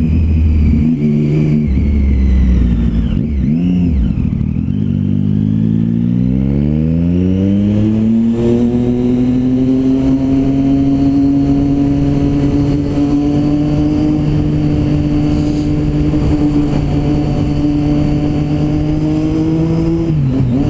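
Motorcycle engine heard from the rider's seat, with steady wind and road noise: it putters unevenly for the first few seconds, then the engine note rises as the bike accelerates, and from about halfway it holds a steady pitch at cruising speed.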